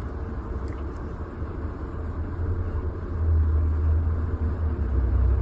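Steady low rumble, louder from about three seconds in.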